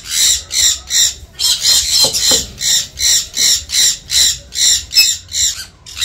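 A parrot squawking over and over, loud harsh high calls about three to four a second.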